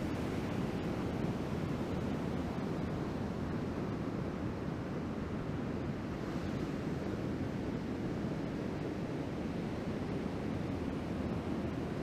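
Waves breaking and whitewater washing in: a steady, even surf noise.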